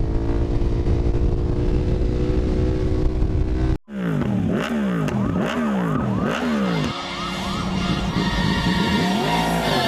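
KTM 1290 Super Duke GT's V-twin engine, remapped and fitted with an Akrapovič exhaust, running at steady revs. After a sudden cut about four seconds in, it is revved up and down about four times in quick succession, then runs steadily again with one more rise and fall near the end.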